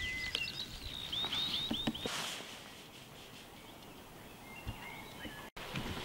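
Small birds calling over faint outdoor background noise: a quick run of four down-slurred notes about a second in, a few thin whistles, and soft chirps near the end. The sound drops out for an instant shortly before the end.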